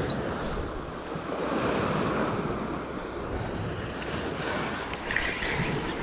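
Sea waves washing against shoreline rocks, with wind buffeting the microphone.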